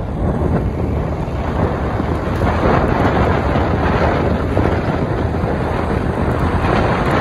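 Steady, loud wind rush buffeting the microphone as it moves along a road on a vehicle, a dense rumbling noise with no clear engine note.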